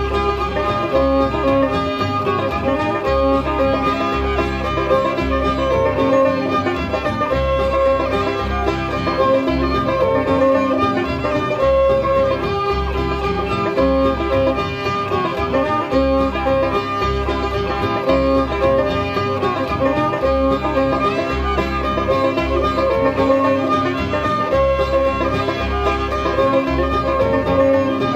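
Old-time string band playing an instrumental tune on fiddle, five-string banjo, acoustic guitar and upright bass, with the bass keeping a steady beat underneath.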